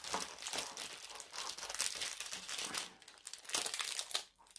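Small clear plastic packaging bags crinkling as they are handled and opened, a quick irregular string of crackles that dies away near the end.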